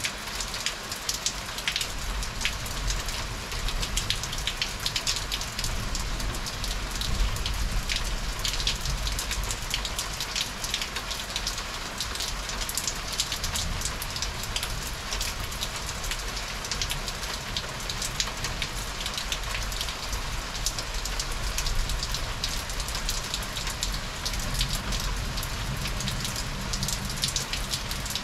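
Heavy rain falling steadily onto hard surfaces during a thunderstorm, with a dense stream of individual drop hits ticking over the hiss and a steady low rumble underneath.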